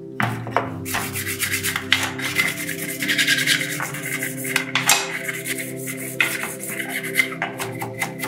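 Hand sanding rust off a metal part: quick back-and-forth rubbing strokes, over steady background music.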